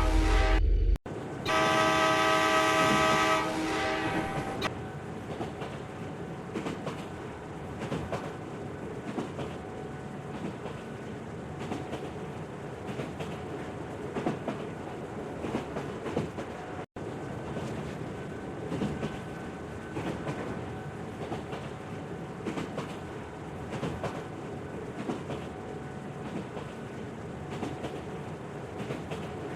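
A train horn sounds, breaks off, and sounds again for about two seconds; then the train runs on with a steady clickety-clack rattle over the track.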